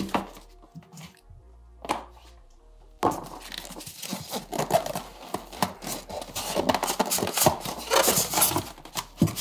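Cardboard and foam packaging being handled, with a few light knocks and a thunk. About three seconds in, background music starts abruptly over more rustling of the packaging.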